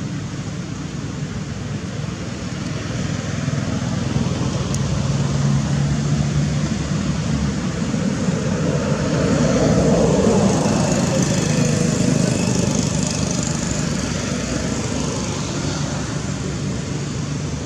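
A motor engine running, growing louder to a peak about ten seconds in and then fading again.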